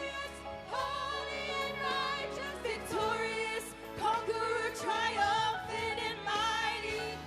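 Worship music: a singing voice holds long notes with vibrato, without clear words, over steady low accompaniment.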